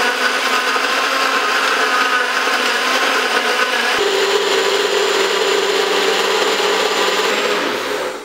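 900 W Nutribullet Pro blender motor running steadily at full speed, blending ice, banana and coconut milk into a smoothie. Its sound shifts abruptly to a steadier hum about four seconds in, and the motor winds down near the end.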